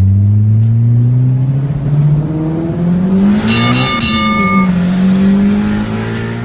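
Car engine revving hard under acceleration, its pitch climbing steadily, with a brief high-pitched squeal about three and a half seconds in.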